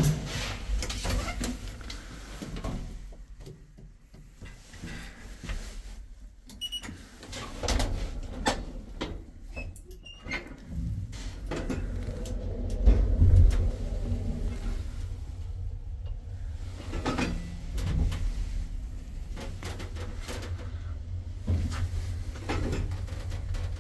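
Marrocco roped hydraulic lift in use: a sharp click at the start, knocks and rattles as the doors close and the cab sets off, then a steady low hum from the hydraulic pump as the cab travels.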